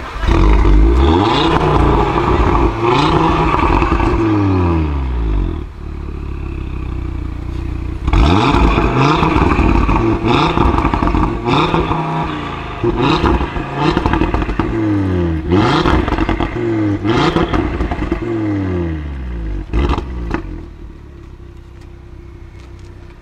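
A 2018 Audi RS3 Sportback's turbocharged 2.5 TFSI five-cylinder engine, heard at the exhaust, is revved again and again while stationary, rising and falling quickly with sharp cracks as the revs drop. It settles to a steady idle for a couple of seconds about six seconds in, then revs repeatedly again and returns to idle near the end.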